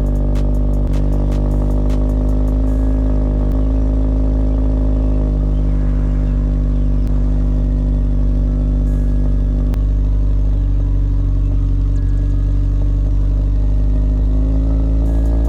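Car engine running steadily with a constant low drone, heard from inside the car.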